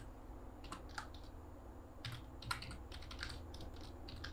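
Faint typing on a computer keyboard: irregular keystrokes, a few a second, over a low steady hum.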